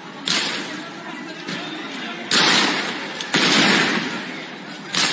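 Four loud, gunshot-like bangs, each dying away over half a second to a second, above a steady background of crowd noise. The two in the middle are the loudest and longest.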